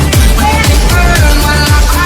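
Electronic dance music with a fast, pounding kick-drum beat, about four kicks a second, and short synth lines above.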